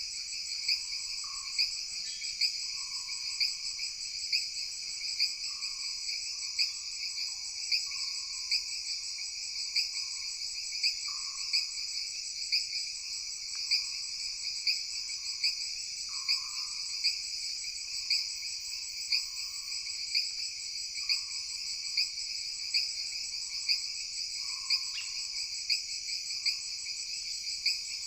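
Forest night ambience: a dense, continuous chorus of crickets and other insects, shrill and steady with a regular pulse, with short lower calls repeating about once a second underneath.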